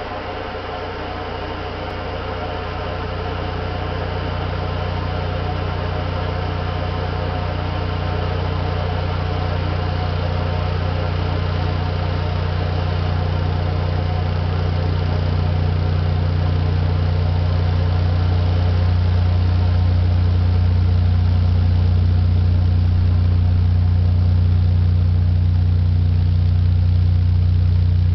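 Loudspeaker playing a steady low hum that grows louder over the first twenty seconds or so, with a rough buzz over it. It is shaking a pool of non-Newtonian fluid on its plastic-wrapped cone.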